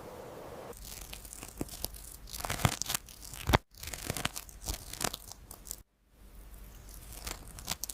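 Irregular crackling and rustling, made of many sharp clicks of varying loudness, that cuts out abruptly twice.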